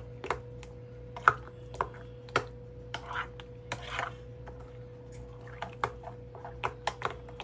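A spoon stirring baked beans in a glass bowl: irregular clinks and taps of the spoon against the glass, several a second at times, with soft wet sounds of the thick sauce in between.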